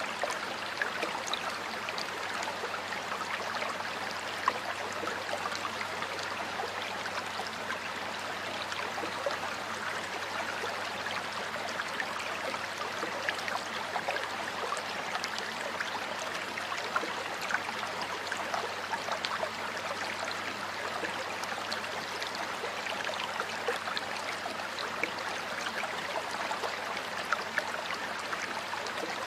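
Stream water flowing steadily over rocks, a continuous rush with many small splashes and gurgles.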